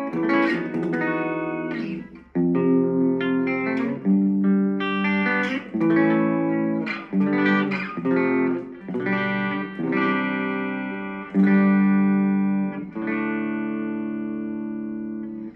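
Korean-made Legend Les Paul Custom electric guitar played clean: a slow run of about a dozen picked notes and chords, each left to ring and fade, with a smooth tone.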